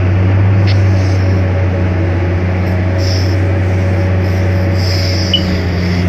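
Excavator's diesel engine running steadily under digging load, heard from the operator's cab, with two brief high whines from the working machine about three seconds in and again near the end.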